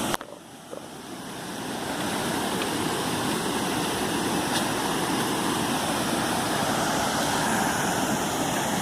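Steady rush of a small waterfall and its fast-running stream, rising over the first two seconds and then holding even.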